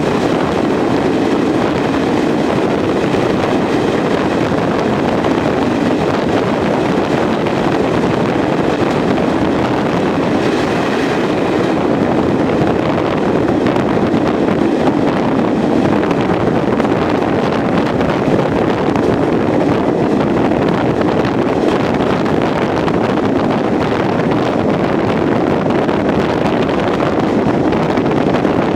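Train running steadily at speed, heard from an open window: an even rush of wind and rolling running noise, with wind buffeting the microphone.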